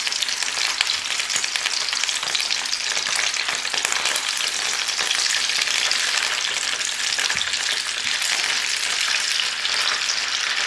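German sausages sizzling in oil in a nonstick frying pan over moderate heat: a steady hiss with fine crackling.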